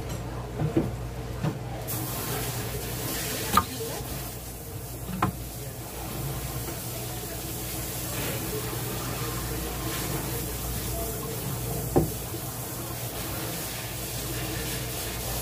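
Steady hiss of running water that starts suddenly about two seconds in, over a low hum, with a few sharp knocks and taps scattered through it.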